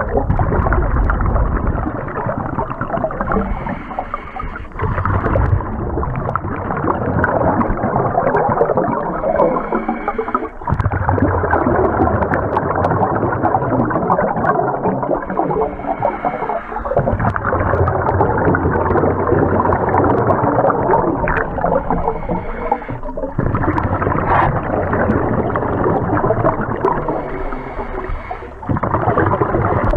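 Scuba diver breathing through a regulator, heard underwater through the camera housing: long, muffled rushes of exhaled bubbles broken by brief pauses about every six seconds.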